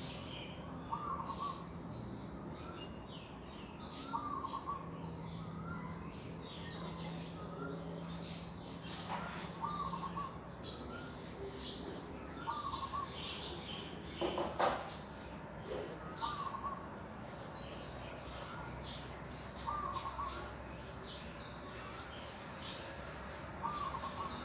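Several birds calling in chorus: one repeats a short mid-pitched call every few seconds, over many quick high chirps. A faint low steady hum comes in for several seconds partway through, and there are a couple of sharp knocks.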